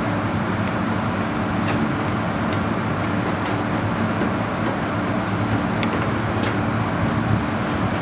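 Steady mechanical hum of rooftop HVAC machinery running, with a few faint clicks scattered through it.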